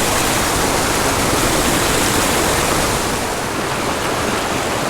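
Small mountain creek running over rocks: a steady rush of flowing water.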